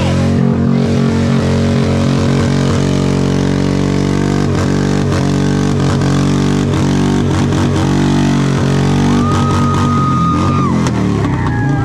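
Harley-Davidson V-twin engine revved hard and held at high revs, with the revs dropping and coming back several times in quick succession midway through. A short, high steady tone sounds over it near the end.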